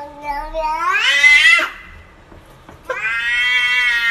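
Domestic cat meowing in long, drawn-out calls. The first call rises in pitch and breaks off about a second and a half in. After a short pause, a second long call begins near the end.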